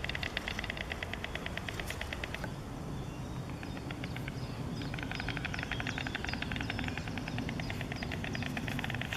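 White stork bill-clattering: a fast, even rattle of bill strikes in two bouts, the first stopping about two and a half seconds in and the second starting about two seconds later and running on, over a steady low background rumble.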